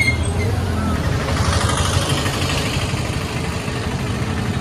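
Steady low rumble of roadside traffic, with a brief high chirp at the start and a hiss that sets in about a second in.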